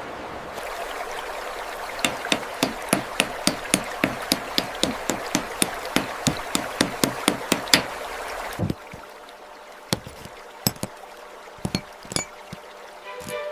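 Repeated sharp tapping knocks, about three a second, over a steady hiss of running water. The water hiss stops about nine seconds in, and a few scattered taps follow.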